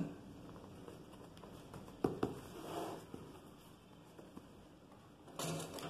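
Faint handling of cotton fabric: soft rustles as a gathered ruffle is pressed and arranged by hand, with a small sharp knock about two seconds in.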